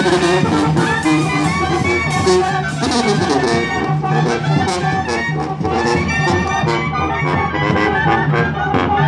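Mexican banda brass band playing: a sousaphone carries a pulsing bass line under trumpets, trombones and drums.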